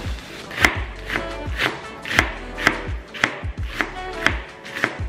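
Chef's knife chopping shredded cabbage on a bamboo cutting board, a steady rhythm of sharp cuts about two a second.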